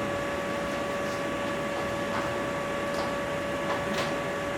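Steady room noise with a constant hum-like whine and hiss, with a few faint short ticks scattered through it.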